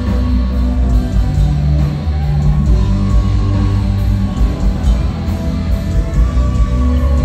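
Metalcore band playing live, loud and continuous: distorted electric guitars, bass and drums, with keyboard.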